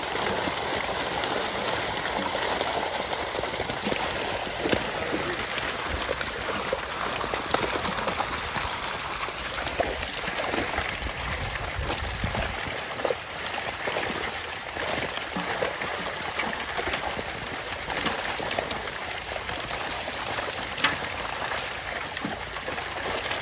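A dense mass of fish thrashing in shallow water inside a tightened harvest net. It makes a continuous splashing, with many small slaps and splashes.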